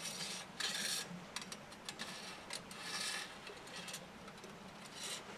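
Thin metal fire-stick rods sliding through the holes in a folding steel stove's side panels: two short metal scrapes, one at the start and one around three seconds in, with a few light clicks between.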